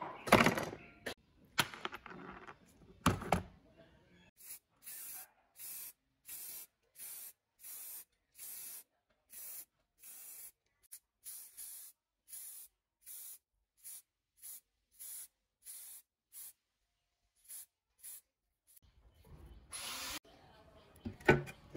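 Spray paint hissing out in short, evenly spaced puffs, about three every two seconds, onto a lamp's metal base, with a longer hiss near the end. It is preceded by a few loud knocks of metal parts being handled.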